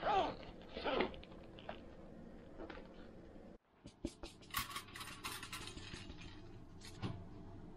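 Rustling and light clicks as a small patterned pouch is handled. Then soaked rice slides from a stainless mesh strainer into a black rice pot, the grains landing in a quick patter for about a second, followed by a single knock near the end.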